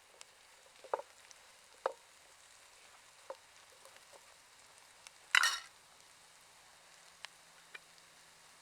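Food frying in a pan with a faint steady sizzle, while a utensil clicks against the pan a few times as it is stirred, with one louder, half-second scrape about five seconds in.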